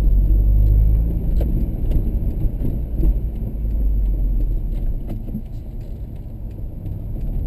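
Car engine and tyre noise heard from inside the cabin while driving along a street: a steady low rumble that eases off a little around six seconds in.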